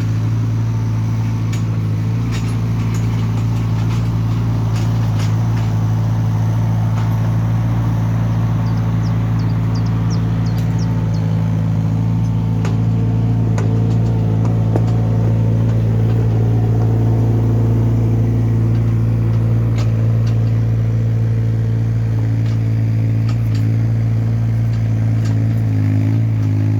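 Hyundai mini excavator's diesel engine running steadily at a constant speed, with scattered clicks and light knocks over the engine note.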